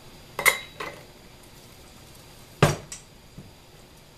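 Stainless steel mixing bowls and a spatula clanking as they are handled: a few light knocks in the first second, one louder clank about two and a half seconds in, then a couple of faint taps.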